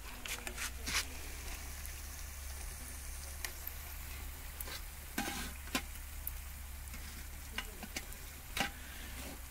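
Jalebis sizzling as they deep-fry in hot oil in a kadai, with a metal skewer clicking sharply against the pan now and then as they are turned.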